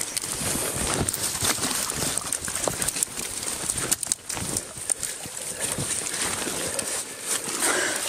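Water splashing and sloshing, with dry branches crackling in irregular snaps, as a hooked trout is netted among dead branches in the shallows.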